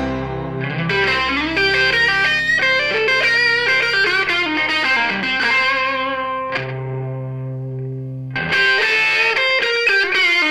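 Background music led by an effects-laden electric guitar over a sustained bass, thinning to held chords around the middle before the full guitar line comes back.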